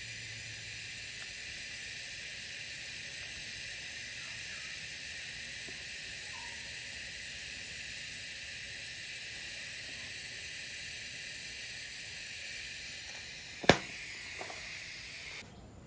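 TIG welding arc hissing steadily as the root pass is run on carbon steel pipe, then cutting off abruptly near the end. A single sharp pop comes shortly before the arc stops.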